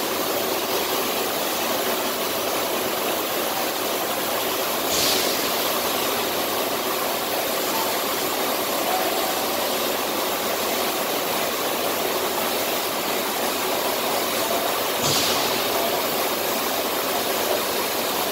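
Steady hissing rush of an automatic beam-cutting machine's torch cutting through a steel I-beam. A brief sharper hiss rises over it twice, about five seconds in and again near fifteen seconds.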